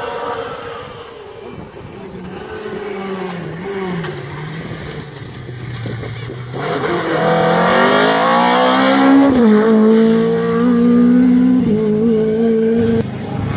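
Rally car engine under hard acceleration. The pitch wanders at first, then climbs steeply about halfway through, drops suddenly at a gear change, and holds a high, steady note until it cuts off near the end.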